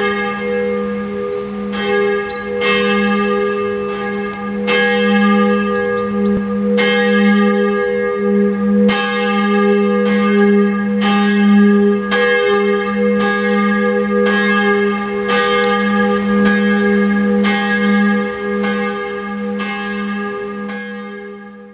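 Church bells ringing, struck about once a second, each stroke ringing on into the next so the tones hang over one another; the ringing fades out near the end.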